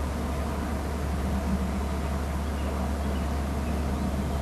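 Steady low hum with a layer of hiss, the constant background noise of an outdoor wildlife nest camera's microphone.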